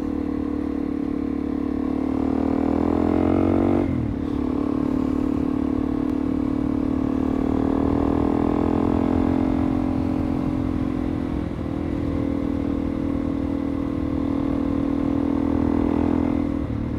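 Suzuki DR-Z400E's single-cylinder four-stroke engine running under way. Its revs climb, drop sharply about four seconds in, then hold fairly steady with two brief dips later on.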